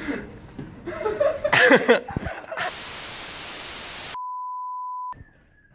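Indistinct voices, loudest a little under two seconds in, then a burst of television static hiss lasting about a second and a half, cut straight into a steady one-pitch test-tone beep for about a second, then near silence: an edited TV static and test-tone sound effect.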